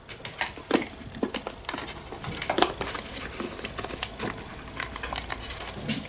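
Hard plastic parts of a Kitfort KT-559 stick vacuum clicking and knocking irregularly as they are handled: the dust container with its filter, then an extension piece.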